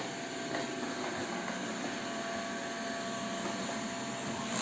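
Xiaomi Mi Robot Vacuum-Mop 1C running steadily, its suction fan and brushes giving an even whir with a faint thin tone over it; a relatively quiet machine.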